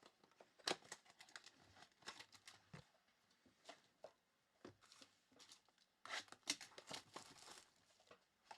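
Packaging of trading card boxes and packs being torn open and handled, wrappers crinkling in scattered quiet rustles, with a busier stretch about six seconds in.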